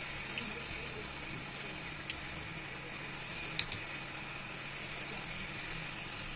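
Steady hiss of a hot-air rework station blowing through its nozzle onto a phone logic board, heating a part to loosen it. A few small sharp clicks from a scalpel blade working at the heated part, the loudest a quick double click about halfway through.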